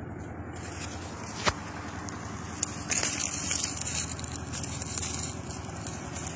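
Handling noise of a hand lens held close to a leaf: a sharp click about one and a half seconds in, then irregular crackling and rustling from about three seconds on, over a steady low rumble.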